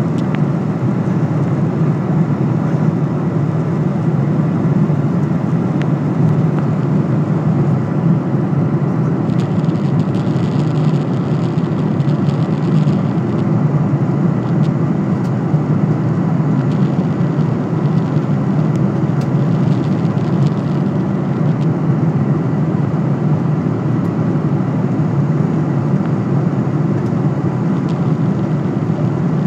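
Steady cabin noise of a jet airliner in cruise: an even, low rumble of engines and airflow heard inside the cabin. A faint higher hiss comes and goes twice in the middle.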